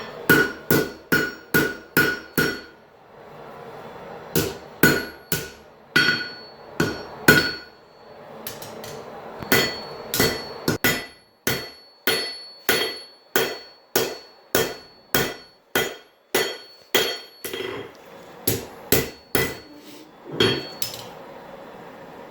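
Blacksmith's hammer striking a hot railroad-spike blank on an anvil, in runs of quick blows about two to three a second. Each blow rings briefly, with short pauses between the runs.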